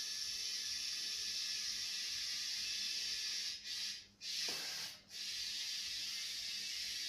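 Compressed air hissing steadily from an air hose into a car tyre as it is inflated. The hiss drops out briefly twice around the middle, with a louder, deeper rush of air in between.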